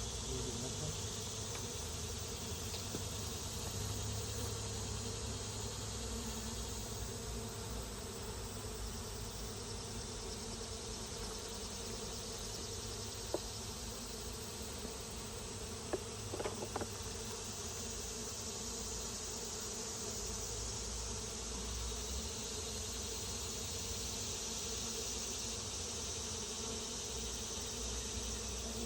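Honeybees buzzing around an open hive during an inspection, a steady hum, with a high steady insect drone above it. A few light clicks of handling are heard about halfway through.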